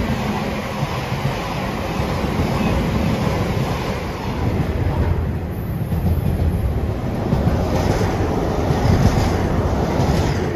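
Container freight train's wagons running past close by: a steady low rumble with wheels knocking over the rail joints, falling away near the end as the last wagon goes by.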